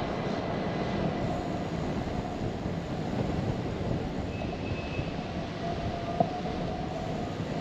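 Steady rumbling road and wind noise from a bicycle ride over city streets, with a sharp click about six seconds in.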